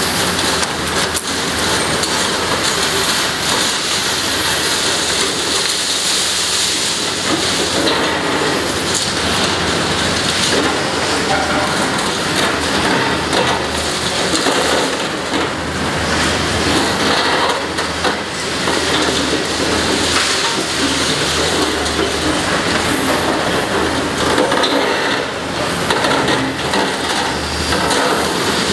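Caterpillar demolition excavator's hydraulic shear crunching reinforced concrete and tearing rebar, with a continuous crackle of breaking and falling debris over the steady running of its diesel engine.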